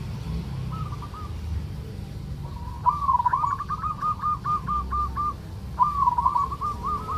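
Male zebra dove (perkutut) giving its 'kerot' call, the call of a bird in breeding condition: quick runs of short repeated cooing notes, about six a second. A faint short phrase comes under a second in, then two louder runs, the second starting about a second and a half after the first ends.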